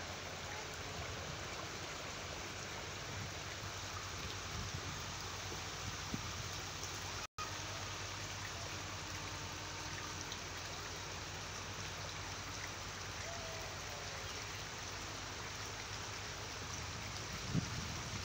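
Shallow stream flowing over stones, a steady rushing of water that cuts out for a moment about seven seconds in.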